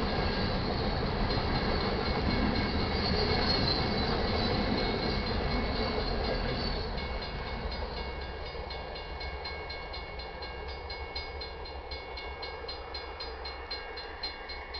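Freight cars of a manifest train rolling past on the main track, steel wheels on rail with a high squeal, the noise fading about halfway through as the train draws away. In the later, quieter part, a fast regular clicking of about three a second.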